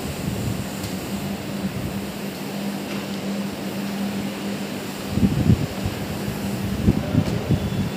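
Single-disc rotary floor scrubber with a shampoo tank running on carpet: a steady motor hum under an even scrubbing noise, with a few irregular low thumps in the second half.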